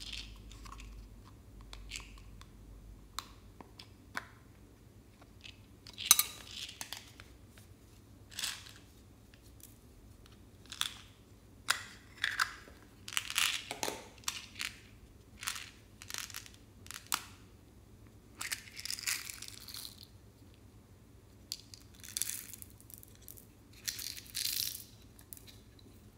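Small plastic owl-shaped containers being opened and shaken out over a glass dish, tipping out pom-poms and tiny beads: a string of sharp plastic clicks and taps, with longer rattling pours near the end.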